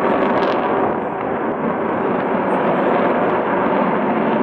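Sukhoi Su-35's twin turbofan jet engines heard passing in flight: loud, steady jet noise with a rough, crackling texture.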